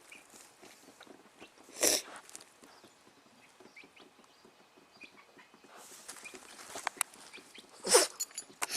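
Two short, sharp sneezes, about two seconds in and near the end, with another beginning just as it ends; small clicks and rustling between them.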